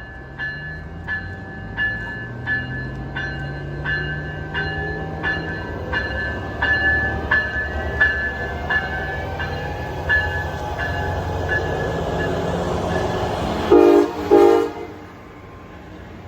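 Train bell ringing steadily, about one strike every 0.7 s, over a low diesel locomotive hum that slowly rises in pitch. Near the end, two short, loud horn blasts.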